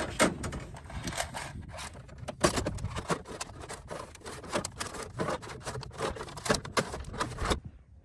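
Scraping, rustling and small knocks of a thin wire being pulled by hand through a hole in a pickup's underbody, with jacket-sleeve rustle close to the microphone and a low rumble of wind on the microphone. It cuts off suddenly near the end.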